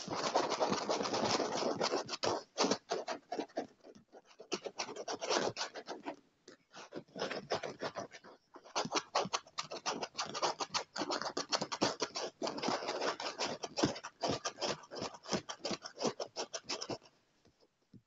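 Fingernails scratching and tapping fast on a chair's surface, rapid dense strokes that break off briefly about halfway through and die away near the end.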